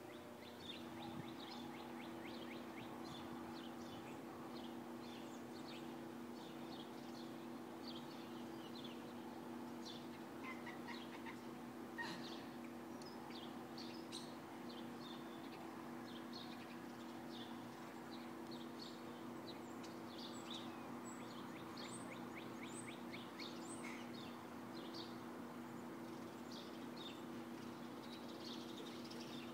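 Small birds chirping, many short high calls scattered throughout, faint over a steady low hum.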